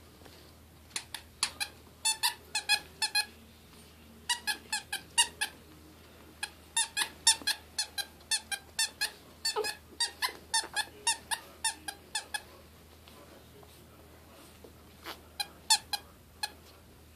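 Squeaky plush dog toy squeezed over and over: runs of short, high squeaks about three a second, in several bursts with short pauses between them.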